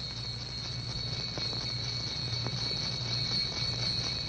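Old film soundtrack before the music starts: a steady high-pitched whine over hiss and low hum, with a couple of faint clicks, slowly getting louder.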